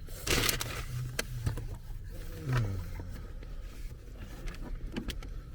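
Rustling and clicking of a takeout food bag being opened over a steady low hum, with a short falling groan about two and a half seconds in.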